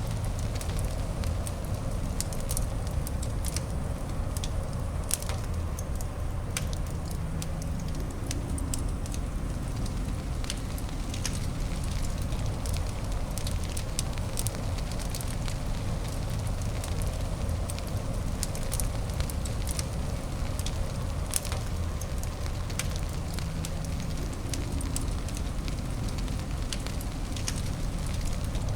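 Fireplace fire crackling: irregular sharp pops and snaps over a steady low rumble.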